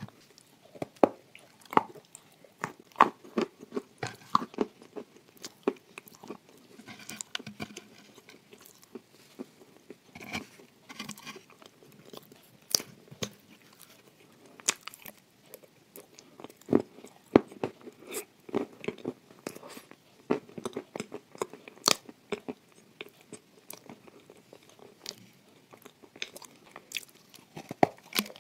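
Close-miked biting and chewing of crumbly shortbread with chocolate paste: irregular sharp crunches and crackles, with softer wet chewing between them.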